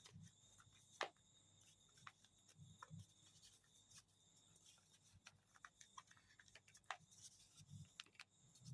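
Near silence with faint, scattered clicks and light rustles: fabric and thread being handled as a running stitch is drawn tight to gather a fabric circle around fibre stuffing.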